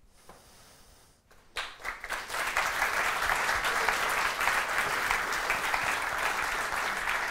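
Audience applauding. It begins about a second and a half in after a short hush and quickly swells to steady, full clapping.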